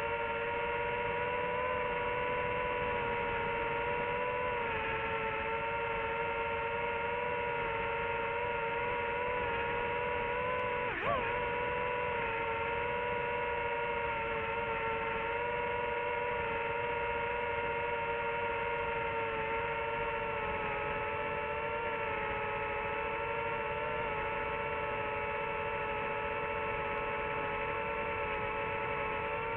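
FPV drone's electric motors and propellers whining steadily in flight, a hum of several tones that waver slightly together. About eleven seconds in the pitch briefly swoops up and back down.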